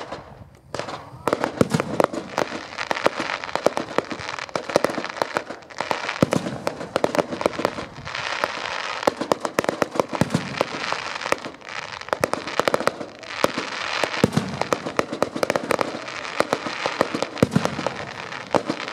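Fireworks display: aerial shells bursting in a dense, continuous run of crackling and popping, with a short lull about half a second in.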